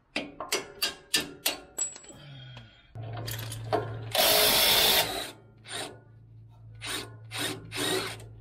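Hand-tool work on a Toyota Prado's front strut and suspension: a quick run of sharp metallic clicks, then a steady low hum with a loud hiss lasting about a second just after four seconds in, and a few more clicks near the end.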